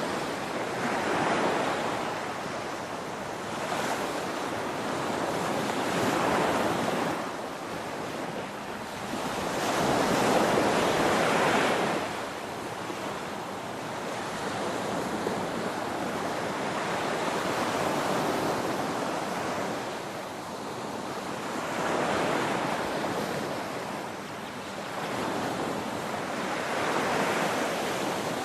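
Ocean waves breaking on a shore in a continuous wash of surf, swelling and falling back every few seconds. The biggest surge comes about ten seconds in.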